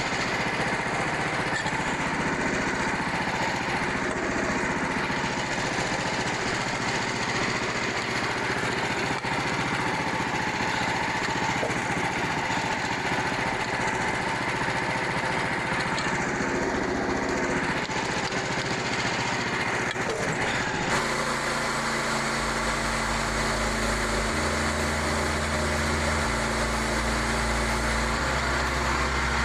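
Frontier OS27 portable band sawmill running steadily under power, its small engine and band blade sawing through a white oak log.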